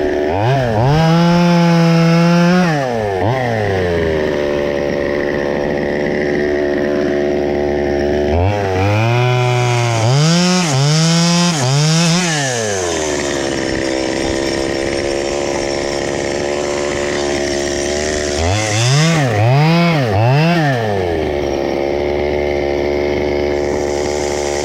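Small chainsaw's two-stroke engine revved up in three groups of quick throttle blips, settling back to a steady idle between them.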